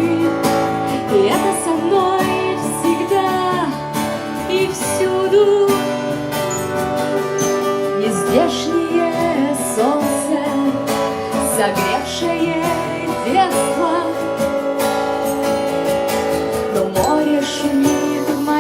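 Live song: a strummed acoustic guitar with other instruments, and a voice singing over them.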